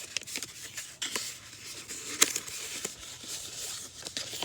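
Packaging being handled and opened: rustling and crinkling with scattered sharp clicks and ticks.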